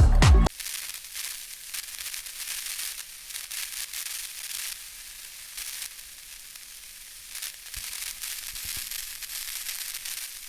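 Music cuts off about half a second in, followed by a steady crackling hiss like static.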